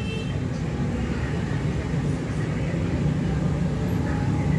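Low rumble of a motor vehicle's engine, growing a little louder near the end.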